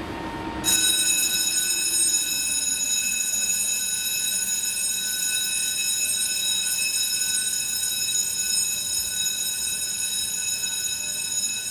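A steady, high-pitched electronic tone with several overtones starts suddenly about a second in, holds unchanged, and cuts off sharply near the end. It comes from beside an MBTA Red Line subway train standing at the platform with its doors open.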